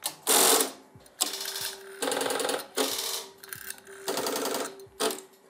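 2000-type two-motion (Strowger) telephone-exchange selectors stepping after a dialled 6: several quick bursts of rapid mechanical clattering as the wipers step up to the dialled level and then across the bank contacts. A faint steady tone runs underneath from about a second in.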